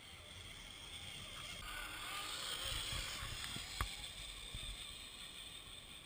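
RC4WD Trail Stomper scale crawler running on a swapped-in Axial electric motor, driving up and over the ground close by, its motor and drivetrain growing louder toward the middle and then fading. There is one sharp knock a little under four seconds in.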